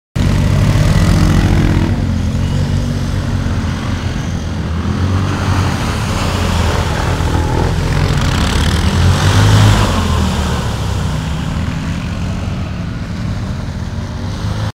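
Quad bike (ATV) engines revving as the quads plough through shallow water. The engine note rises and falls with the throttle and peaks about nine and a half seconds in, over a hiss of water spray.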